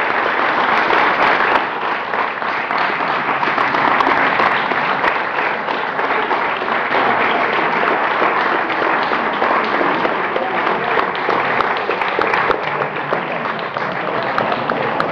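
An audience applauding: many hands clapping at once in a sustained ovation.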